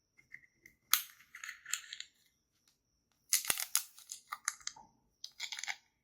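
Close-miked handling of small toy pieces and packaging: a sharp click about a second in, then bursts of crinkly rustling, scraping and small clicks.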